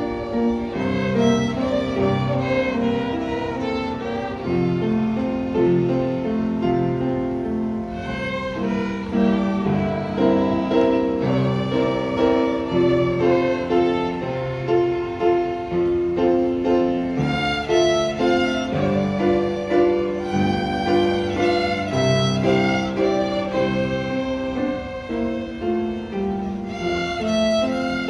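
Violins played by an elementary school after-school violin class, bowing a melody in held notes.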